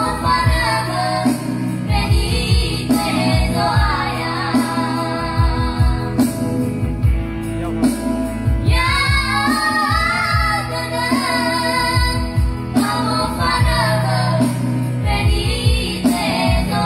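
Trio of children singing together into microphones over amplified backing music with a steady beat, a girl's voice carrying high, held notes.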